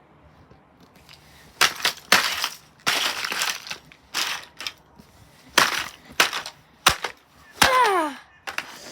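Plastic housing of a Blaupunkt fan heater being smashed: a series of about ten sharp cracks and crunches as the casing breaks, with a short falling squeak near the end.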